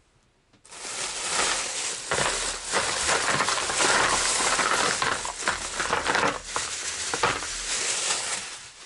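Thin plastic shopping bag crinkling and rustling loudly as hands rummage through it. The rustling starts about half a second in and dies away near the end.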